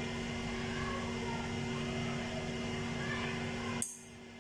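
Steady machine hum, like a fan or household appliance running, with a low steady drone; it cuts off abruptly near the end, leaving a quieter room tone.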